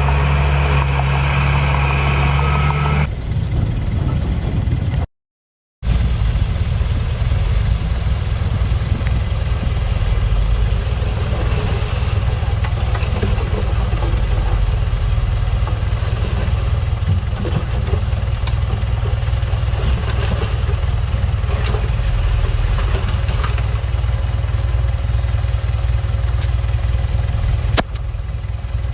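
Heavy diesel construction machinery engine running steadily, a low rumble with no change in speed. The sound cuts out completely for under a second about five seconds in, and the engine note turns rougher afterwards.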